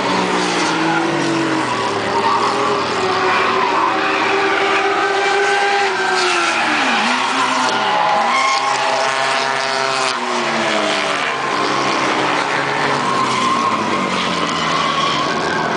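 Drift cars' engines revving hard, pitch rising and falling again and again as they slide, over the tyres squealing and skidding.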